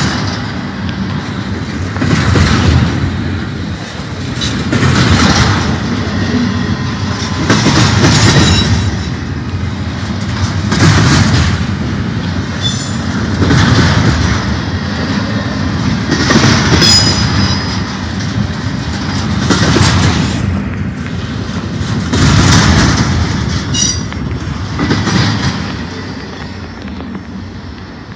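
BNSF double-stack intermodal train's well cars rolling past close by, the wheels clattering over the rail joints in swells about every three seconds as each car's trucks go by. A few brief, high wheel squeals come through. The sound fades near the end as the last car passes.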